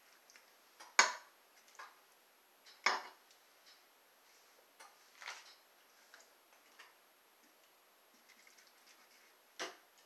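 Light clicks and taps as onion pieces and fingers knock against a baking pan full of raw seasoned chicken: four sharper clicks, about a second in, near three seconds, past five seconds and near the end, with a few fainter ticks between.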